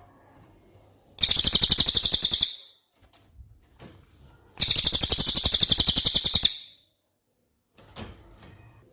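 Cililin songbird singing two long, loud, rapid trills, each about a second and a half, made of fast repeated high notes, then a few faint short chirps near the end.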